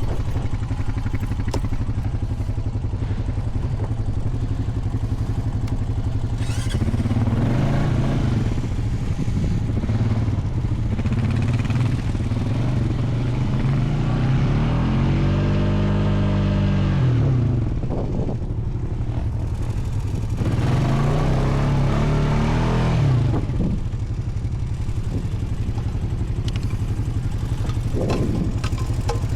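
Honda Foreman 520 ATV engine idling, with four rises in revs that fall back again, the longest an even climb and drop about halfway through.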